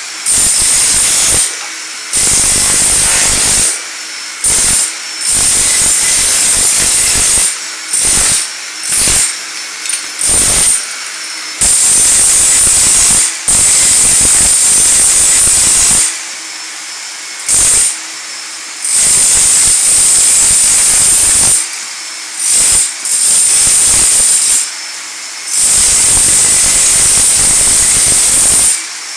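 Power chipping hammer with a vacuum dust shroud chiseling floor tile and thinset loose. It runs in repeated bursts of a few seconds, stopping and starting again about a dozen times, while a dust-extraction vacuum hisses steadily underneath the whole time.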